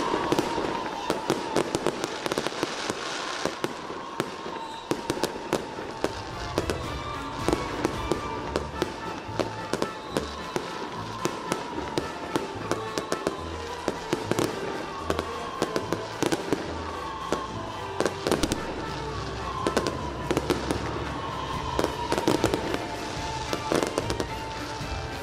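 Firecrackers and fireworks going off in many quick, irregular bangs, over a high tone that falls in pitch every couple of seconds and a low, uneven beat underneath.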